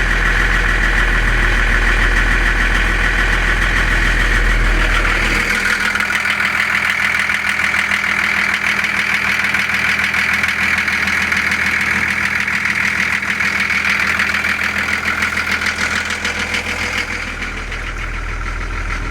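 1996 UD 1400 diesel truck engine idling steadily just after a cold start with glow plugs. About five seconds in, its deep low rumble drops away.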